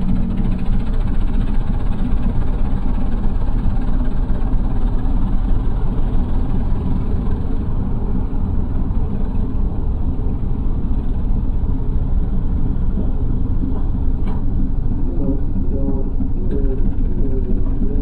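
Diesel engines of a Mahindra 475 DI tractor and a JCB 3DX backhoe loader running steadily under load as the tractor's rear wheels churn through deep mud and the backhoe tows it out. The sound is deep and steady, with most of its weight low down.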